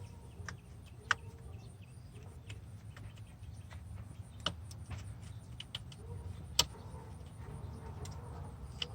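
Scattered light clicks and taps of hand tools and small parts being handled while working on a truck's alternator terminal, the loudest click about six and a half seconds in, over a low steady hum.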